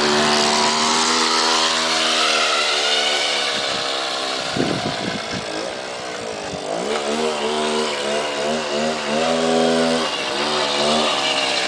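Motorcycle engine running on the move, its note steady at first, then easing off briefly in the middle. It picks up again with a wavering pitch as the throttle changes, over a constant rush of wind.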